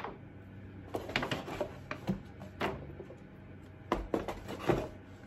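Irregular rustling of a shopping bag and tissue paper, with a few short knocks as glass candle jars are handled and set down.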